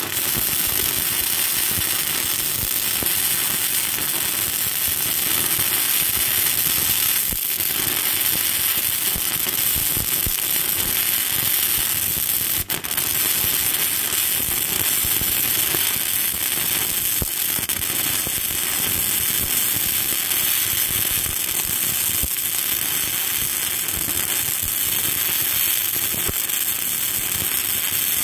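Flux-core welding arc from 5/64-inch Lincoln NR-211 wire, crackling steadily and loudly while the weld is laid in deep-penetrating structural steel. The arc breaks off for an instant about halfway through, then carries on.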